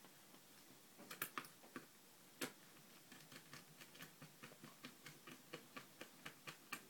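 Small screwdriver driving a screw into the Apple TV's metal base plate: faint clicks, a few sharper ones in the first half, then a steady ticking about four times a second as the screw is turned.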